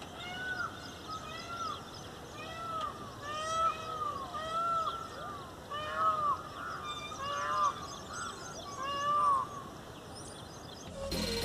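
Birds calling: many short calls that rise and fall in pitch, overlapping and repeating throughout, with fainter high chirps behind them.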